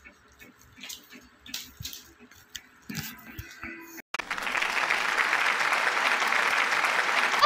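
Faint knocks and handling sounds in a quiet room. About four seconds in, a recorded applause sound effect starts abruptly and goes on steadily.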